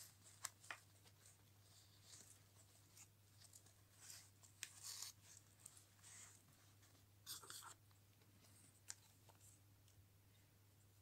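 Near silence with a faint low hum, broken by scattered light clicks and soft rustles of hands handling small metal charms and their jewellery box packaging, with a cluster of clicks around the middle.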